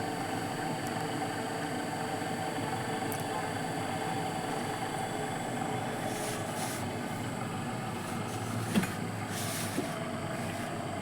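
Electric valve actuator with a newly fitted replacement motor running steadily, driving the valve toward open: an even mechanical hum, with two light clicks late on.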